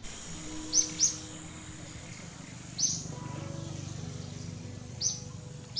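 A bird calling with short, sharp, high chirps, about five of them at uneven gaps, over a faint low hum that shifts in pitch.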